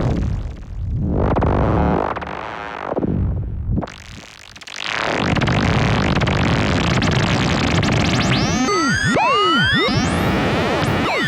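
Eurorack modular synthesizer patch through a Steve's MS-22 MS-20-style filter, making experimental sounds. Two swelling bursts of sound come first, then a short dip, then a dense gritty noise. About eight seconds in, several pitches glide up and down and cross each other, ending in fast rising sweeps.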